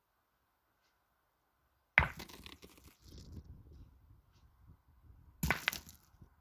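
Pétanque boules: a steel boule strikes hard about two seconds in, followed by a few seconds of crunching and rolling on the gravel, then two sharp knocks in quick succession near the end.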